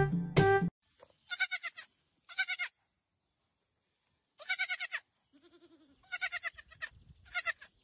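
Young goat kid bleating: five short, high-pitched, quavering bleats a second or two apart, with a shorter, lower call between them about five and a half seconds in. The first instant is the tail of brass music.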